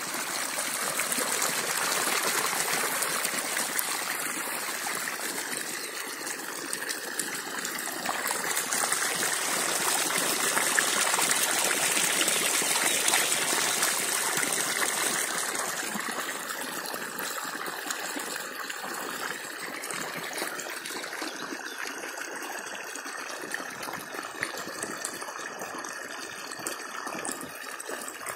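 Water gushing from a borewell submersible pump's delivery pipe and splashing onto a sheet, a steady rushing that is louder for a few seconds midway.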